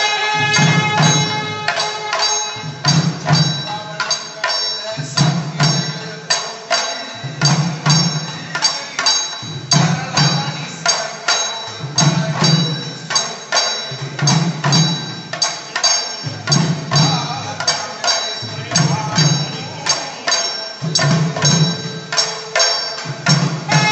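Double-headed hand drums beaten in a fast, driving rhythm: a deep stroke about once a second under a stream of quicker, sharp strokes, with a steady high metallic ringing over the top.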